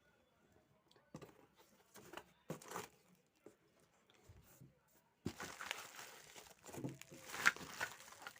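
Packaging being handled during an unboxing: scattered light rustles and knocks at first, then from about five seconds in a continuous, louder crinkling and rustling.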